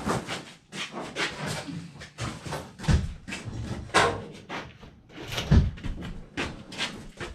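Irregular knocks and clatter of a furnace's sheet-metal cabinet and panels being handled, with three louder bangs about three, four and five and a half seconds in.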